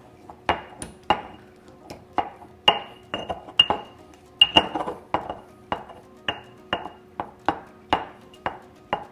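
Pestle knocking and grinding mango pieces in a mortar: a steady run of sharp clinks, about two a second, each with a brief ring.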